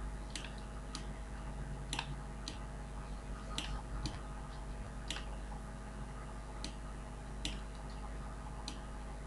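Computer mouse clicking, about a dozen sharp clicks at irregular intervals, over a faint steady low hum.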